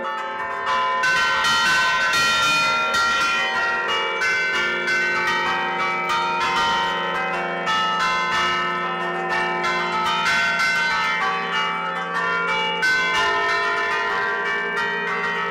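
Church tower bells played from a hand keyboard of levers (Bergamasque suono a tastiera), the ringer sounding the bells' clappers through ropes. The notes come in a quick, continuous run and overlap as they ring on.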